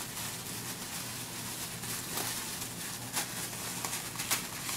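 A thin plastic bag rustling and crinkling as dried leuzea (maral root) roots are pulled out of it by hand, with a few sharper crackles along the way.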